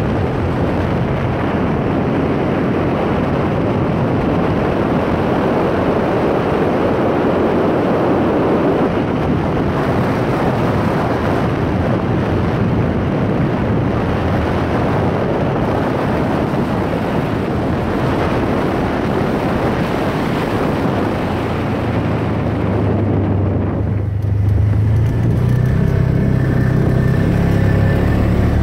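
Off-road vehicle riding a dirt trail: a steady rush of engine and wind noise. About four seconds before the end the rush drops away as it slows, leaving the engine running at low revs with a steady low hum.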